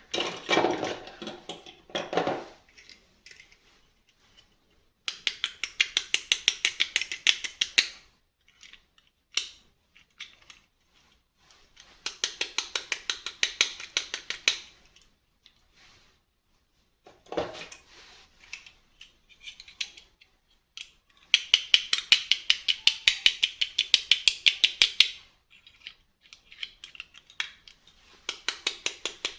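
Runs of rapid, evenly spaced sharp clicks, about eight a second, each run lasting about three seconds and coming four times, with short bursts of handling noise at the start and between the runs.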